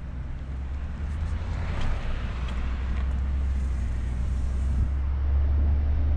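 A car driving, heard from inside the cabin: a steady low road and engine rumble that grows gradually louder, with a brief swell of hiss about two seconds in.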